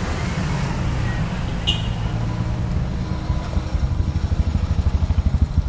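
Small motor scooter engine passing close by, its low exhaust pulsing growing louder over the last two seconds. A short sharp click about a second and a half in.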